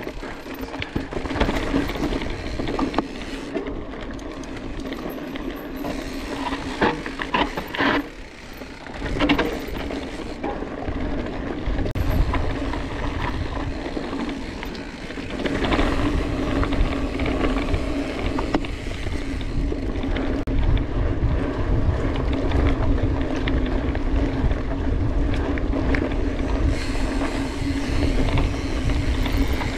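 Mountain bike riding on a dirt trail: the rear freehub buzzes steadily while coasting, and the tyres roll over rough ground with scattered knocks and rattles from the bike. A low rumble grows heavier about halfway through.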